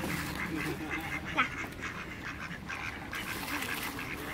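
Mallard ducks quacking repeatedly in short calls.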